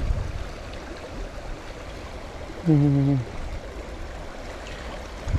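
Shallow river flowing over stones, a steady rush of water, with low rumbles near the start and end. A little before halfway through, a person makes a short voiced sound, like a hum, that falls slightly in pitch.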